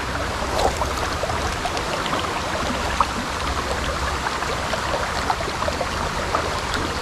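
Shallow river water rushing and rippling over a stony riffle: a steady wash with many small trickling ticks scattered through it.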